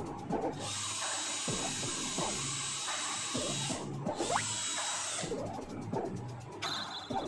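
Cordless drill spinning a makeup brush against the blower fan inside a split air conditioner's indoor unit. It runs in two bursts, about three seconds and then about a second, with a steady whirring hiss.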